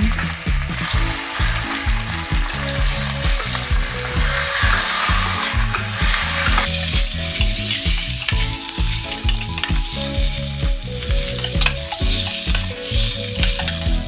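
Rehydrated black (shiitake) mushrooms with ginger and garlic sizzling in hot oil in a stainless steel pot, stirred and scraped with a metal spatula. The sizzle eases after about six and a half seconds as the stirring goes on.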